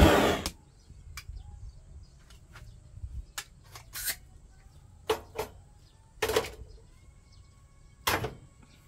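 A loud steady rushing noise cuts off in the first half second, leaving a newly lit fire of dry firewood crackling with scattered sharp pops and snaps.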